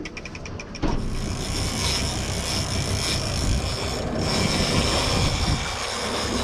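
Fishing reel being wound with rapid, even ticking for under a second, then a boat's outboard motor running with the hull underway and water and wind rushing past.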